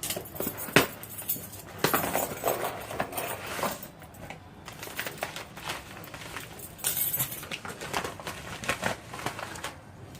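A shipping package being opened by hand: cardboard and packing material rustling and crinkling in irregular bursts, with scattered sharp clicks and knocks, the loudest a knock just under a second in.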